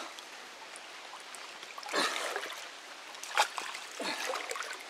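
Creek water trickling and lapping around people wading in it, with a few short splashes as hands and bodies move in the water, a sharp one a little past the middle.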